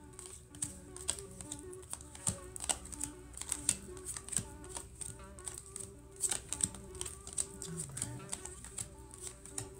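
A deck of tarot cards being shuffled by hand: a quick, irregular run of soft clicks and snaps, with faint steady background music underneath.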